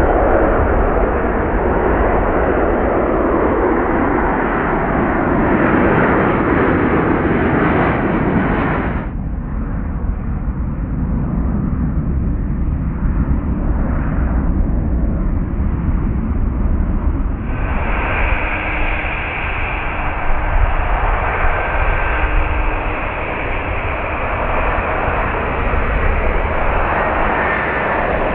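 Jet airliner engines running loudly: first a Boeing 767-300ER, whose steady roar drops abruptly about nine seconds in, then from about two-thirds of the way through an Embraer E190, whose roar carries a steady high whine.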